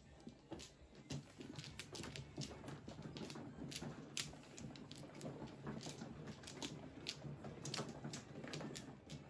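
Plastic mahjong tiles clicking and clacking as several players draw them from the walls and set them into their hands: many quick, irregular clicks, some overlapping, over a low steady hum.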